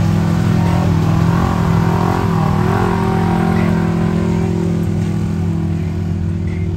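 Off-road vehicle engine running loudly, its pitch rising and falling briefly as it revs about a couple of seconds in, then running steady.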